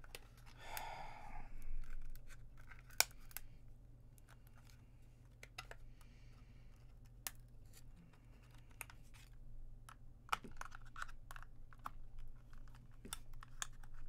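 Plastic laptop battery pack being handled and pried apart by hand: a short scraping rustle about a second in, then scattered sharp clicks and taps of the plastic casing.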